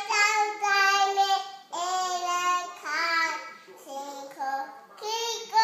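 A toddler girl of about 22 months singing in a high voice, holding notes in a string of short phrases with brief breaks between them.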